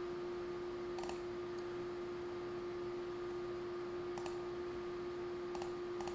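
Four separate clicks of computer input while a presentation is reloaded, spaced a second or more apart, over a steady electrical hum.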